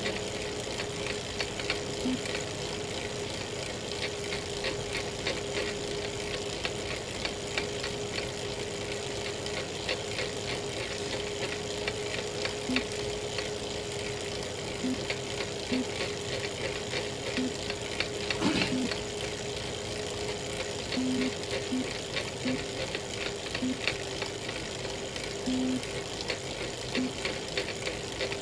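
Elite Real Turbo Muin B+ fluid trainer running under a pedalling rider: a steady hum with a continuous run of small cracking clicks, and one louder crack about two-thirds of the way through. This is the cracking noise the owner hears from the trainer at any cadence whenever power goes above about 200 watts.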